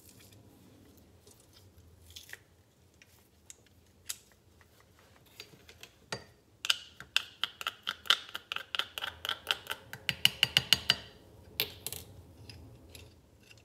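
Handheld metal garlic press being worked over a cup of sauce as a garlic clove is pressed and the pressed garlic is scraped off. A few faint clicks, then past the middle a quick run of sharp metallic clicks and scrapes, about four or five a second, for several seconds.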